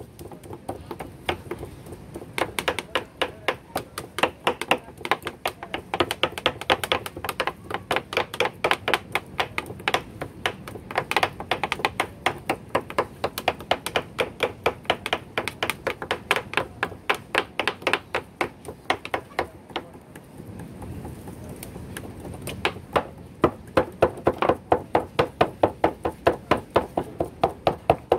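Knives rapidly chopping raw tuna on plastic cutting boards, mincing the fish into small pieces: a steady run of sharp taps at about four a second, easing off briefly about twenty seconds in, then picking up again.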